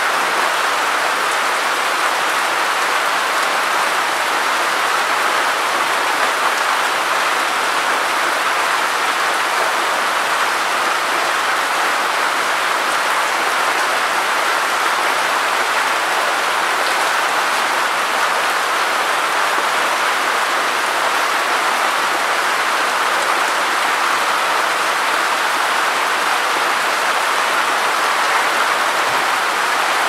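Steady rain falling on wet ground, an even, unbroken hiss that neither builds nor eases.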